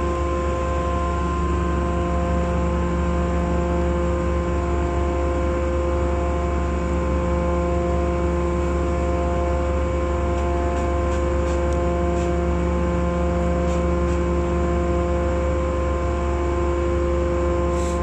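Hydraulic power unit of a scrap metal baler running steadily: a constant low hum with a steady multi-tone whine, and a few faint clicks in the second half.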